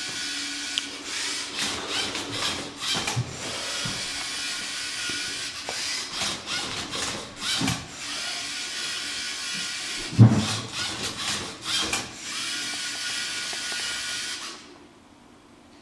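LEGO Mindstorms EV3 motors of a MindCub3r Rubik's Cube robot whirring as it scans the cube, turning the turntable and moving the sensor arm, with a loud clunk about ten seconds in. The whirring stops about a second before the end.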